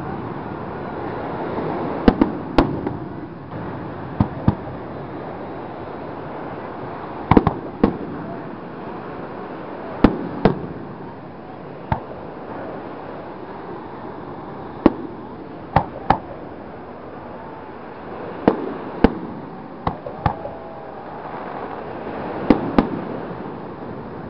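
Aerial fireworks shells bursting in a public display: a dozen or more sharp bangs spread irregularly through the stretch, several coming in close pairs about half a second apart.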